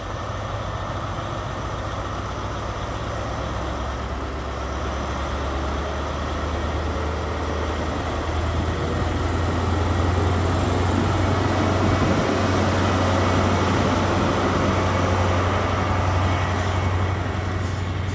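The diesel engine of a Class 43 HST power car drones with a deep steady hum as the train moves slowly along the platform, growing louder toward the middle and easing slightly near the end.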